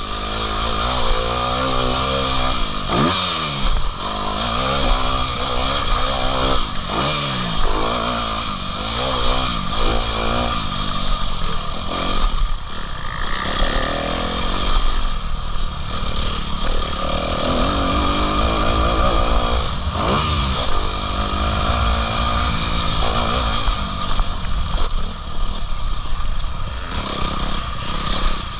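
Motocross bike engine revving up and dropping back again and again, as when riding through the gears on a track.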